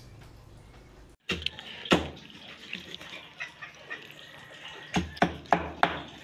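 A meat cleaver chopping a roasted rabbit on a thick wooden chopping block: a series of irregular sharp chops, the loudest about two seconds in and several in quick succession near the end, over a steady hiss.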